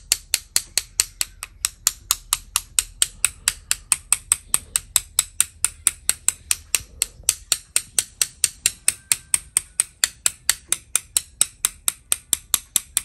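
Rapid, even tapping, about four to five taps a second with a couple of brief pauses: a paint-loaded brush being tapped to spatter white dots onto the paper.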